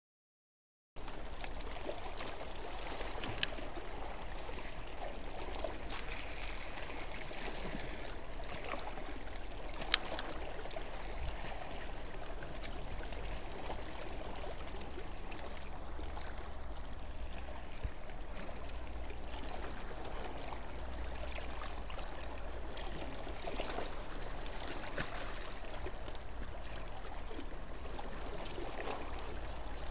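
Harbour water lapping and trickling against the quay, a steady wash over a low hum, with a single sharp click about ten seconds in.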